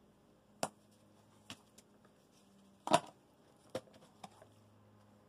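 Kitchen utensils and spice containers being handled while ground spices go into a bowl of dry batter mix: a few scattered light clicks and knocks, the loudest about three seconds in, over a faint low hum.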